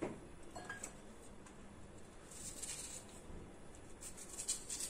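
A knife slicing okra pods lengthwise by hand: faint slicing and scraping noises in short bursts, with a few light clicks.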